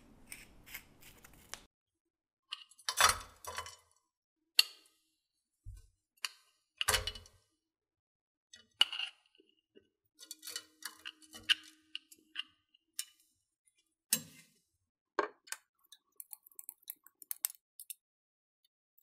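Kitchen handling of a glass jar of coconut oil and a nonstick frying pan: the jar is opened, solid oil is scooped into the pan and spread with a spatula. This gives a string of separate knocks, clinks and scrapes with short gaps between them, and a cluster of light ticks near the end.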